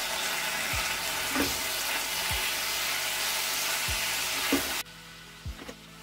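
Chopped tomatoes and softened onions frying in hot oil in a pan, a loud steady sizzle, with a spatula knocking the pan twice as it stirs. The sizzle cuts off abruptly near the end. Under it runs soft background music with a low thump about every second and a half.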